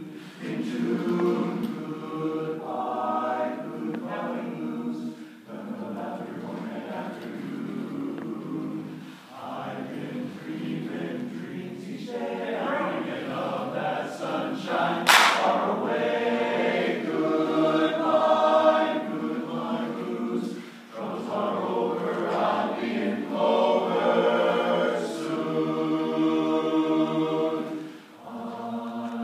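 Men's barbershop chorus singing a cappella in close harmony, in phrases separated by short breaks. A single sharp smack cuts through about halfway.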